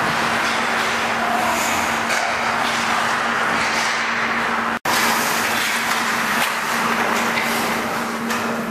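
Ice rink ambience during hockey practice: a steady hiss with a constant low hum under it, and faint clicks of sticks and pucks on the ice. The sound drops out for an instant about five seconds in.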